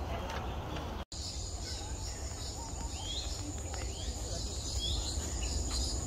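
Tropical forest ambience: a steady high-pitched insect drone, with a bird giving short rising calls about once a second, over a low wind rumble. The sound cuts out briefly about a second in.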